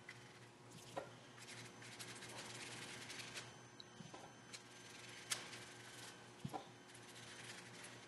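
Faint scratch and rustle of a paintbrush working watercolour paint onto paper, with a few light clicks.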